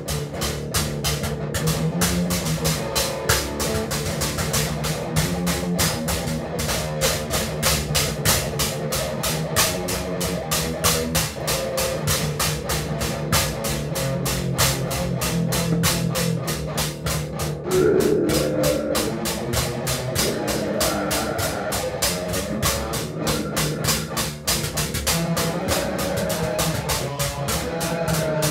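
Loud, heavily distorted extreme music from a split cassette: fast, relentless drumming under a dense wall of distorted guitar, with no pause.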